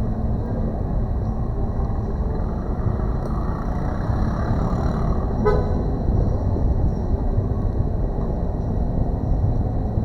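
Steady low background rumble with a faint high steady whine, and one brief horn-like toot about five and a half seconds in.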